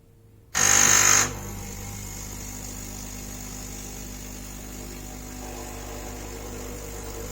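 Repaired coffee machine started: about half a second in, a loud buzz lasting under a second, then its pump settles into a steady humming buzz as it runs.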